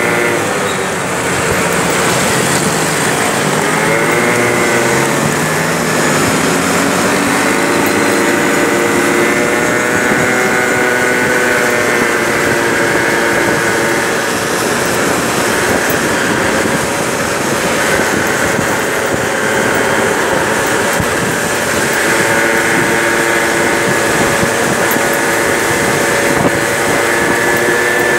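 Peugeot Jet C-Tech 50cc scooter engine running on the move, its pitch climbing and settling as the scooter speeds up and eases off, over steady wind and road noise.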